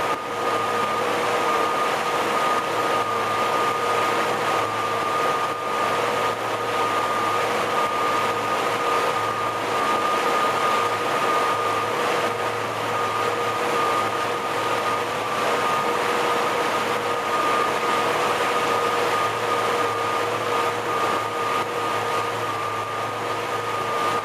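350 cubic-inch V8 MerCruiser sterndrive running at a steady speed with the boat under way: a constant engine drone with a steady whine above it, over the rush of the churning wake.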